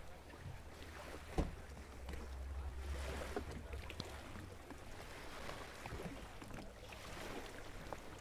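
Wind rumbling on the microphone over faint lapping of small waves at the water's edge. A single sharp knock comes about a second and a half in.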